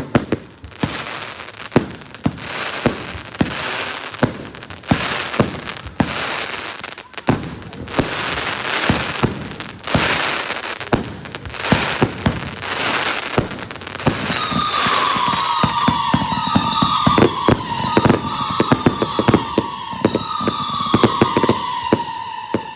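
Fireworks going off: rapid sharp pops and crackling with bursts of hiss. From about two-thirds of the way through, a whistle that falls in pitch repeats several times over the crackle.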